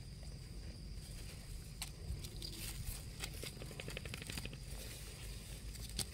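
Faint scraping and small clicks of a metal spoon digging in damp soil among dry grass stems, with a quick run of clicks around the middle.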